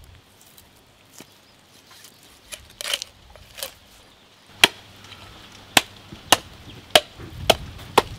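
A knife chopping into a large trevally: six sharp strikes, about half a second to a second apart, begin about halfway through, after a few brief scraping sounds.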